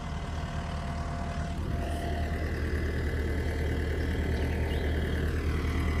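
Tracked skid steer's diesel engine idling with a steady low hum, the machine stopped close by.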